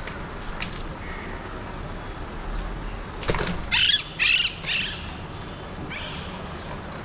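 Alexandrine parakeets giving three loud, harsh screeching calls in quick succession about four seconds in, just after a brief sharp sound, with a fainter call near the end, over a steady background hum.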